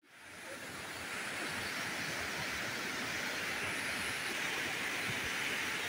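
Raging floodwater in a river swollen by monsoon rain, rushing over boulders in one steady, unbroken noise that fades in over the first second.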